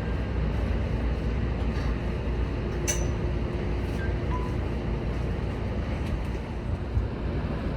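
Seibu 20000 series electric train running, a steady low rumble with a single sharp click about three seconds in.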